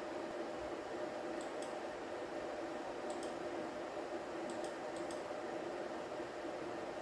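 Steady room hum with a faint hiss, like a fan or electrical equipment running, with a few faint ticks scattered through it.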